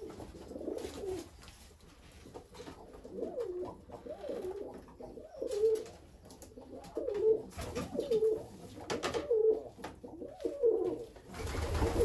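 Racing pigeons cooing again and again, with a few knocks and rustles as a bird is lifted out of a transport basket; the loudest rustle comes near the end.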